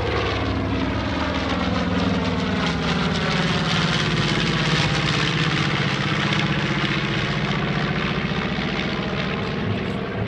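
North American B-25 Mitchell flying past, its two Wright R-2600 twin-row radial engines and propellers making a steady, loud drone. The sound grows loudest about halfway through, then eases as the bomber heads away.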